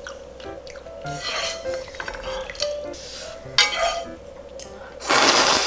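Chopsticks clinking and scraping in a nonstick frying pan of noodle stew while eating, over soft background music, with a sharp clink about three and a half seconds in and a louder half-second burst of noise near the end.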